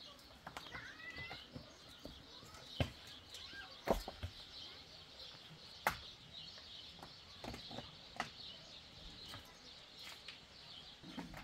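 Faint birds chirping steadily, with a few sharp clicks and knocks scattered through.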